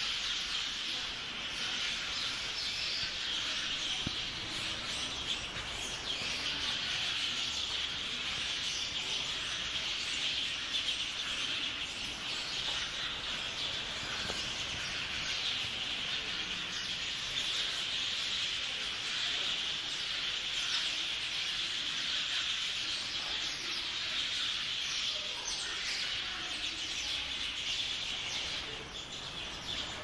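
A large flock of small birds chirping all at once, a dense, unbroken chatter of many overlapping calls that eases slightly near the end.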